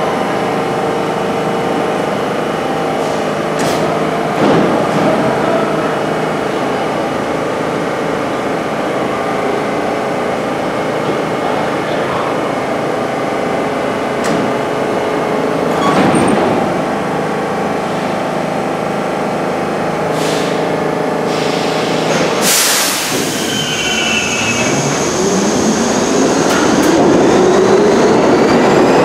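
R-32 subway train standing at a station platform with its equipment humming steadily and a few clicks, then a short, sharp hiss about three quarters of the way through. After that it pulls out, its traction motors whining higher and the sound getting louder as it gathers speed.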